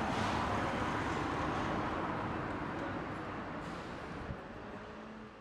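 Steady background vehicle noise, a broad rumble and hiss like traffic, fading out gradually.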